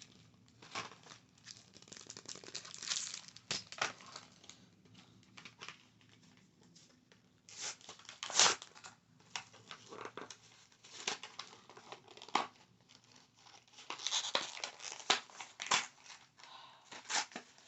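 Close-up crinkling and crackling of handled material in irregular bursts with short pauses, one sharp crackle standing out about halfway through.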